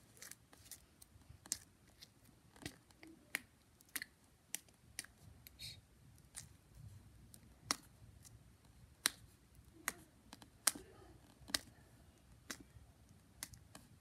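Slime being poked and squeezed with fingers, giving short, sharp clicking pops at uneven intervals, about one or two a second.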